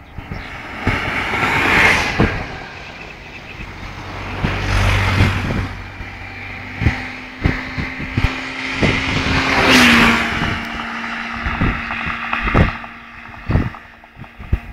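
Distant explosions: sharp bangs scattered throughout, with long surging rumbles, the loudest about ten seconds in.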